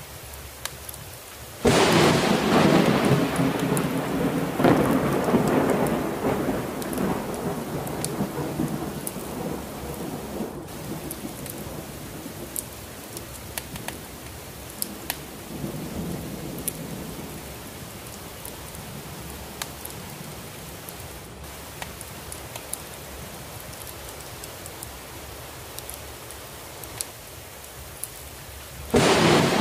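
Thunderstorm with steady heavy rain: a loud thunderclap breaks about two seconds in, surges again a few seconds later and rolls away slowly, a fainter rumble comes near the middle, and another clap breaks just before the end. Scattered faint ticks sit over the rain hiss.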